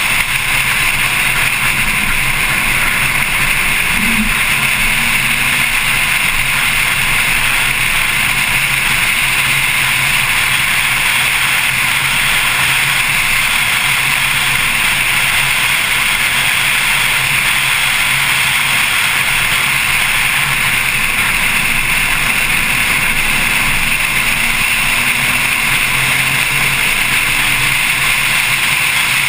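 Porsche Carrera S's flat-six engine at track speed, heard under a steady rush of wind on the microphone and road noise, with the engine pitch rising slightly a couple of times.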